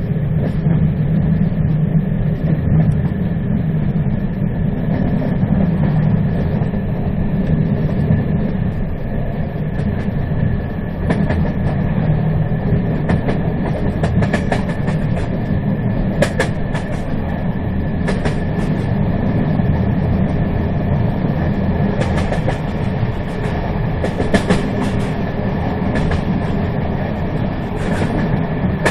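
Train running along the track: a steady, loud rumble of the wheels on the rails. From about eleven seconds in, sharp clicks and rattles come often over the rumble.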